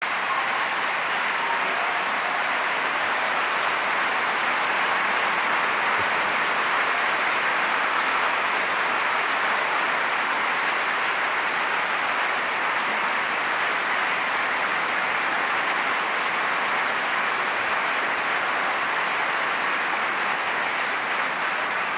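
Large audience applauding: a dense, steady wash of many hands clapping at once, sustained without a break.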